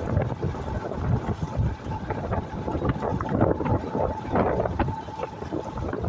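Wind buffeting the microphone of a moving vehicle in uneven gusts, with a faint steady whine underneath that fades out near the end.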